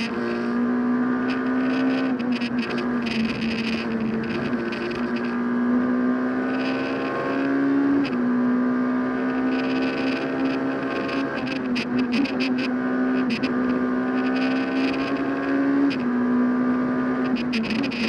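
Rally car engine heard from inside the cockpit, revving up through the gears with sharp drops in pitch at gear changes about eight and sixteen seconds in. Short clicks and rattles run over it throughout.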